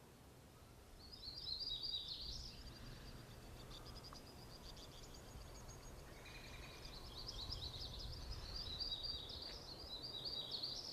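Wild songbirds singing rapid, high warbling phrases, one burst about a second in and a longer run from about the middle on, over a steady low outdoor rumble.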